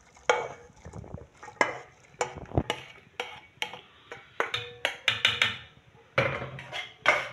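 Red spatula knocking and scraping against a metal wok as stir-fried vegetables and chicken are pushed off it into a pot of stock. The knocks are sharp and irregular, about one or two a second.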